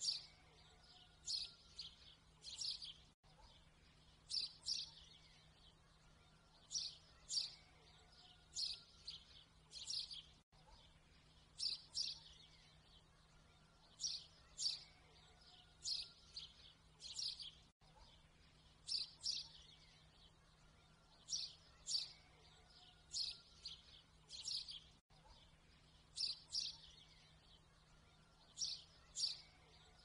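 Bird chirping laid on as a loop: clusters of short high chirps, the same few-second pattern repeating about every seven seconds over a faint steady hum.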